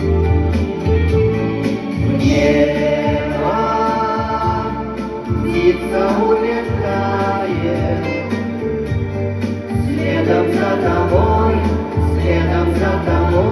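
Song music: sustained sung voices over an accompaniment with held chords and a steady bass.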